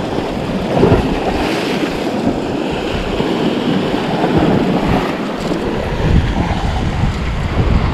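Sea surf washing against rocks, rising and falling in surges, with wind rumbling on the microphone.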